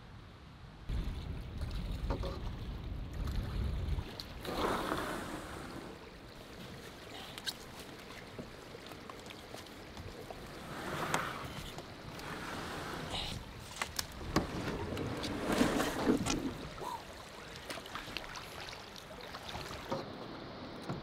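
Canoe on the water: intermittent sloshing, knocks and rustling as it is boarded and paddled through dead brush. Wind buffets the microphone for a few seconds, starting about a second in.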